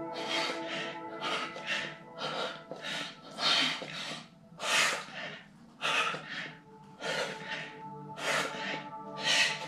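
Heavy breathing of a man straining through push-ups: sharp breaths in and out, often in pairs, about once a second. Steady background music plays underneath.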